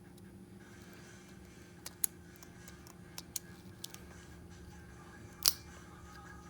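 Scattered small sharp clicks and taps of repair tools and parts being handled while a smartphone is taken apart, the loudest about five and a half seconds in, over a faint steady hum.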